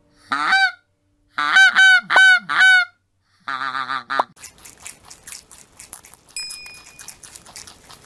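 Greylag goose honking: four short honks in the first three seconds, then a longer, wavering call. Over the second half there are only faint clicks and rustling.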